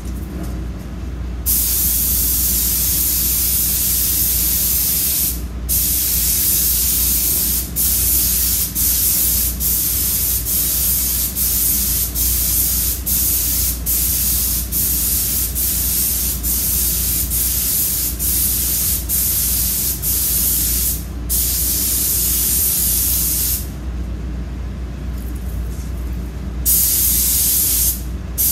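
Compressed-air paint spray gun hissing as it sprays a truck fender, starting about a second and a half in and going in long strokes broken by many brief stops, with a longer lull of a few seconds near the end. A steady low hum runs underneath.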